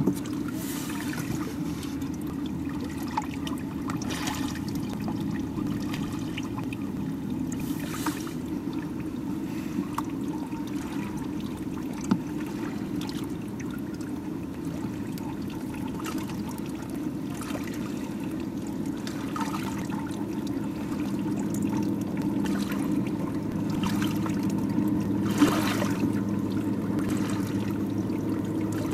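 Underwater ambience of a scuba diver's regulator, with exhaled bubbles rushing up every few seconds over a steady low drone.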